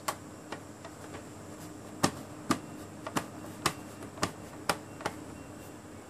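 A run of sharp clicks: a few faint ones first, then about eight louder ones roughly every half second from about two to five seconds in, over a faint steady hum.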